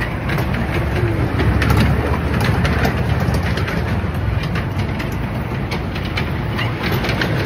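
Kiddie train ride running on its small circular track: a steady low rumble with frequent sharp clicks.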